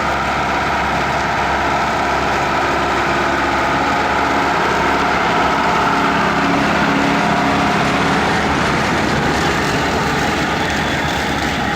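MB-Trac tractor's diesel engine running steadily with the rattle and hum of tractor-drawn potato machinery.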